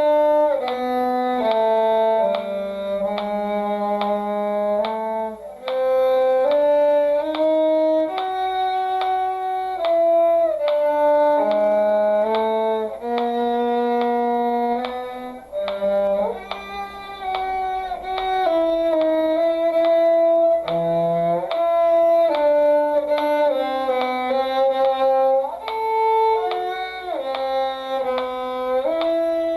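Violin and cello playing a duet together, the violin on the upper line and the cello on a lower line, in even notes of about a second each.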